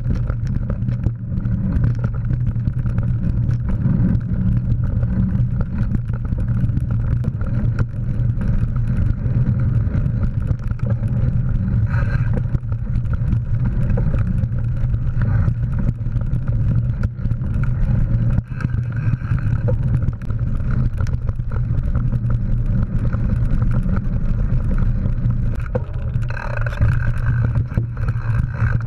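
Steady low rumble of a mountain bike rolling over a dirt trail, picked up by a GoPro on the rider, with many small knocks from bumps in the path.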